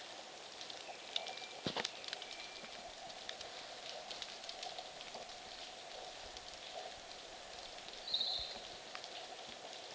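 Snowmelt dripping from snow-laden tree branches: many small drops falling at random over a faint steady rush. A short high chirp about eight seconds in.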